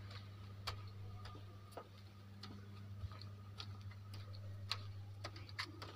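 Faint, sharp footstep clicks on a hard floor at an uneven walking pace, over a steady low electrical hum.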